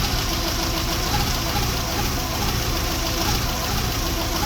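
Volkswagen Mk4's 1.6 SR petrol engine idling steadily, with a weird engine noise that the owner suspects may be a bearing knock.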